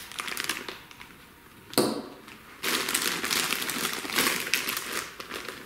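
Plastic bag crinkling and rustling as it is handled, with a wiring harness inside it or lifted out of it. The first second and a half is quiet; a sharp rustle comes about two seconds in, then steady crinkling for about three seconds.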